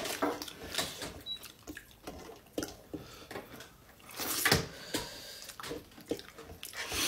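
Eating by hand: fingers working soft finger-millet dhido and greens against metal plates, with scattered small clicks and mouth sounds. One louder noise comes about four seconds in as a handful goes into the mouth.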